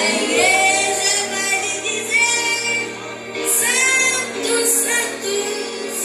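A solo voice singing a song over backing music, with a few long held notes that waver in pitch.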